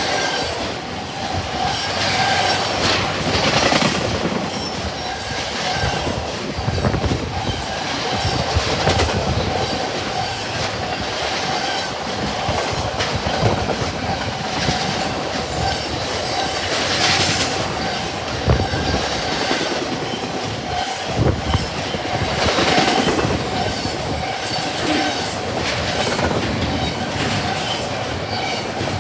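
Double-stack container freight train cars rolling past at speed, their wheels clattering over the rail joints in an irregular string of knocks, with a steady high-pitched wheel squeal running under it.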